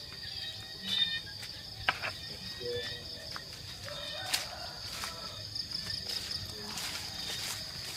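Steady high-pitched chorus of insects, crickets or similar, running without a break, with scattered knocks and rustles from handling and movement.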